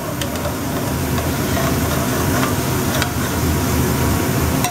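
Onions and red wine sizzling in a hot pan while a metal spatula stirs them and scrapes the pan bottom to deglaze it, with a few light scrapes and taps against the pan.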